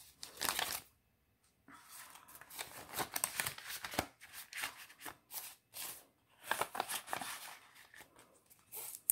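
Paper banknotes rustling and sliding as they are handled and tucked into clear plastic zipper pouches, with crinkling of the plastic. Irregular short rustles, with a brief pause about a second in.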